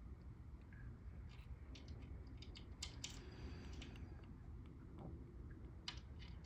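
Small sharp clicks and light taps of screws and blade hardware being handled while a blade is fastened onto a ceiling fan, over a low steady hum. The clicks come in a cluster from about a second in, then a few more near the end.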